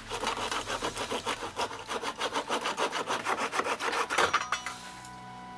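Fast back-and-forth rasping strokes of a hand tool on old frame timber, about five a second, stopping about four seconds in. Music comes in as the strokes stop.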